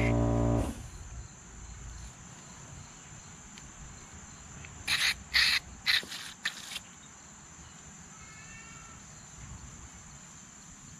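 Aerosol contact cleaner sprayed through its straw into a small-engine carburetor in about five short hissing bursts, a little after the middle. A steady insect trill runs underneath, and a loud steady hum cuts off within the first second.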